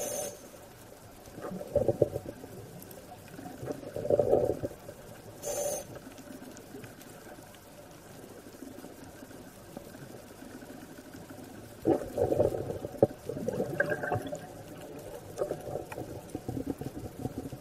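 Scuba regulator breathing heard underwater: muffled bursts of exhaled bubbles every few seconds, with brief hisses of inhalation in between.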